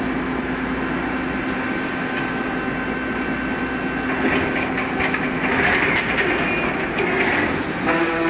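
Pipe-cutting circular saw machine running with a steady motor hum. About halfway through, louder, uneven noise with scattered clicks joins in.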